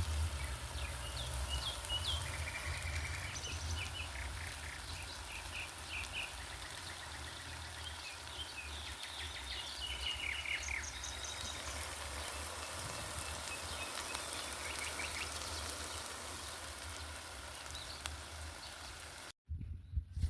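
Birds chirping and calling in short, repeated phrases over a steady hiss and low rumble. The sound cuts off abruptly near the end.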